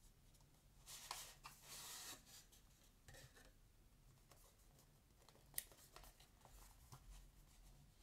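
Faint handling of a rigid presentation box: a rubbing, sliding scrape lasting about a second, then scattered light taps and one sharp click a little past halfway as the box is opened.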